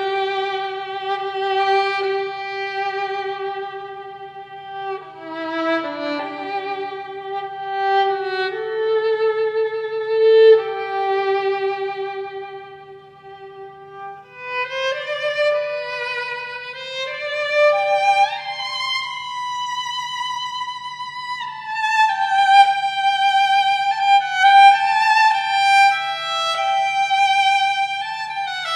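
Background music: a solo violin playing a slow melody of held notes with vibrato, sliding between pitches.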